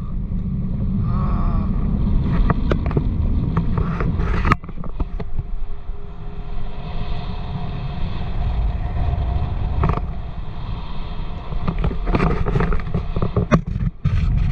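Wind buffeting the microphone in a heavy low rumble over the steady drone of a motorboat's engine, with a few sharp knocks.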